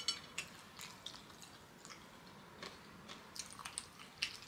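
Faint, irregular wet clicks and smacks of a person chewing kenkey and fried fish close to the microphone.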